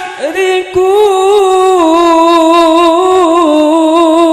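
Melodic Qur'an recitation (tilawah) by a male reciter: after a short break for breath near the start, he holds one long drawn-out note on the verse's ending, ornamented with small steps in pitch and a steady waver toward the end.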